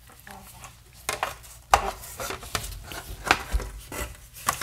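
Irregular small metallic clicks and knocks from the metal case and chassis of a 1938 Clough-Brengle FM sweep alignment generator being handled and turned. The sounds start about a second in, with two sharper knocks near the middle.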